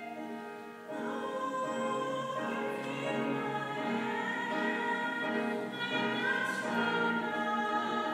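Mixed voices singing a musical-theatre number together in harmony, with long held notes. The singing is softer for about the first second, then comes in fuller and stays steady.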